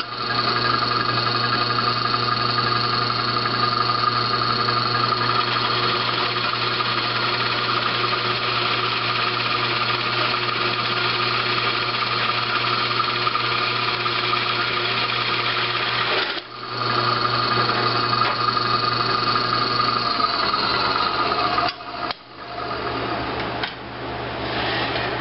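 Drill press running with a large Forstner bit boring a hole through softwood pallet board: a steady motor hum with the cutting noise of the bit. It drops out briefly twice, about two-thirds of the way through and again near the end.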